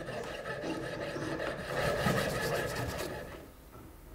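Jeweler's piercing saw cutting a small metal piece against a wooden bench pin, in quick back-and-forth strokes. The sawing stops a little after three seconds in.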